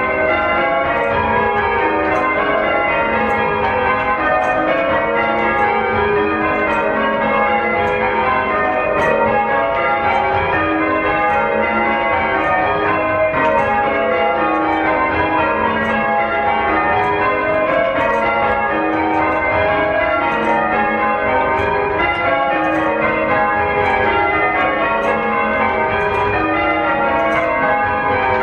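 Church bells rung in sequence, each bell striking in turn so that their tones overlap in a continuous, even stream of strokes.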